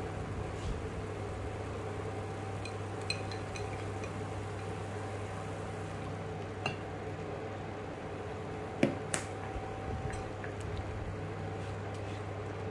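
Scattered light clinks of utensils against a stainless steel cooking pot, loudest as a pair about nine seconds in, as a liquid curry-powder mixture is poured in. A steady low hum runs underneath.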